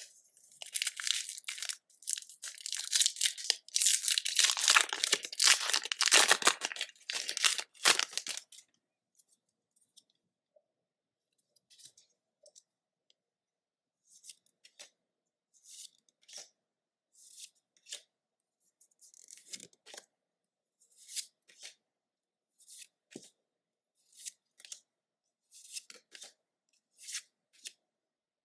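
A foil Pokémon booster pack wrapper being torn open and crinkled for about eight seconds. After that come short, soft paper swishes about once a second as the trading cards are slid over one by one.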